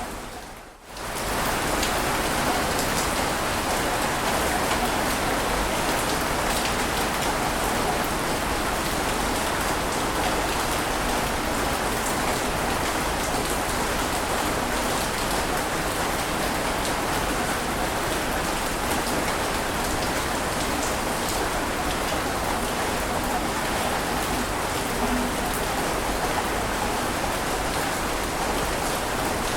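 Steady rushing water noise, even in level, with faint scattered ticks through it. It dips out for about a second just after the start, then comes straight back.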